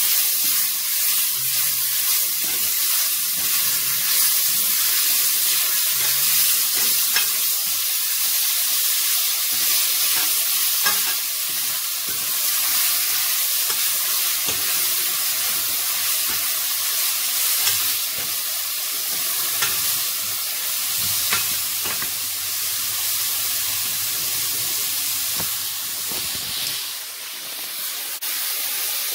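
Sliced wild boar sausages with chopped spring onion, leek and garlic sizzling steadily in a stainless steel pot, while a plastic spatula stirs them with light scraping against the pot.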